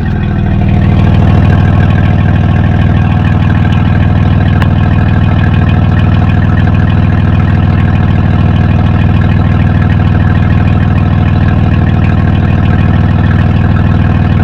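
Honda car engine idling steadily and loudly through its exhaust, growing louder over the first second or so and then holding an even note.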